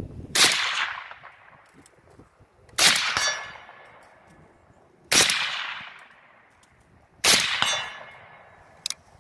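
Four suppressed shots from an AK-47 in 7.62×39 mm with a Dead Air Wolverine silencer, spaced about two seconds apart, each followed by a short decaying tail. A metallic ringing clang from the steel targets being hit follows some of the shots.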